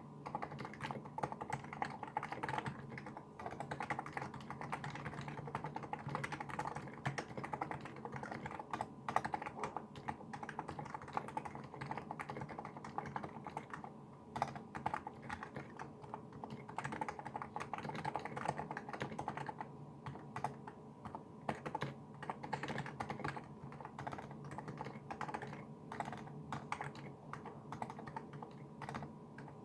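Continuous typing on a NiZ Plum Micro84 keyboard with SA-profile keycaps: a steady stream of key presses, with a few brief pauses.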